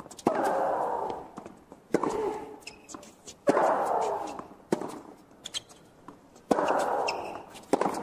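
Tennis rally: racket strikes on the ball about every one and a half seconds, every other shot followed by a loud drawn-out shriek lasting about a second from the hitter, the shots in between with shorter, fainter grunts.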